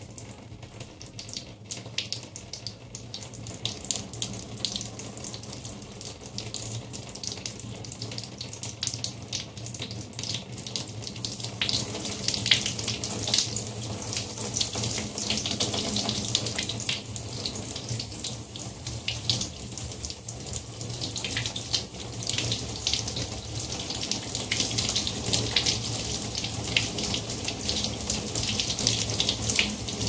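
Water running from a bathtub tap and splashing off a small board held in the stream into the tub; the splashing grows louder about twelve seconds in.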